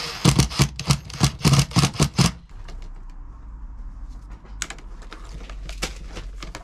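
Cordless drill driving a screw to fix a fuel pump bracket to a carpeted van panel: a quick run of sharp clacks, about four a second, for about two seconds. Then a few light clicks of handling.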